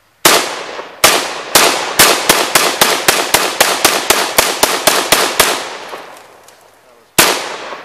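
AK-47 rifle firing. Four spaced shots, then a quick string of about sixteen shots at roughly four to five a second, then after a pause of nearly two seconds one last shot near the end. Each crack trails off in a ringing echo.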